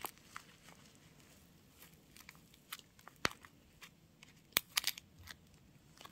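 Tape-covered paper squishy being squeezed and worked by hand: scattered crinkles and sharp crackles of paper and tape, with a few louder clicks about three seconds in and again a little past four and a half seconds.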